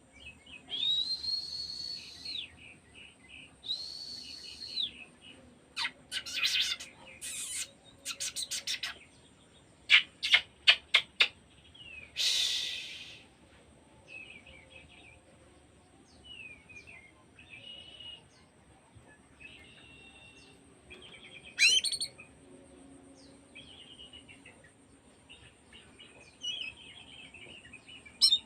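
Oriental magpie-robin (kacer) singing a varied song: clear whistled phrases near the start, then runs of sharp rasping notes and a harsh burst, with quieter twittering phrases in the second half.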